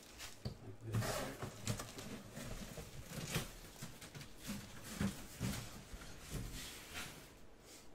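Plastic bags and paper envelopes rustling and crinkling as they are handled and moved about, with a few soft thumps.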